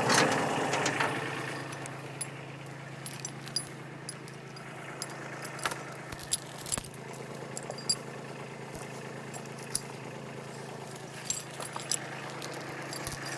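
An engine idling steadily under a string of sharp clicks, knocks and rattles, loudest about six to seven seconds in. A louder engine sound dies away in the first second.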